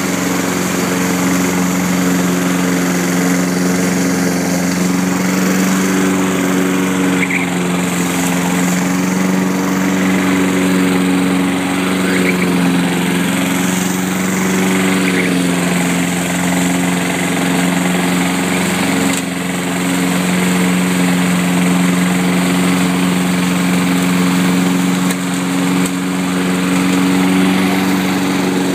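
Walk-behind gasoline lawn mower engine running steadily at cutting speed while the mower is pushed across grass, its pitch wavering only slightly.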